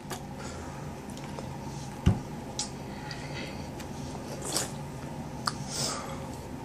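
A man breathing hard and sniffing, with several short breaths through the mouth and nose as he reacts to the burn of an extremely hot pepper extract. A steady low hum runs underneath, and there is a dull thump about two seconds in.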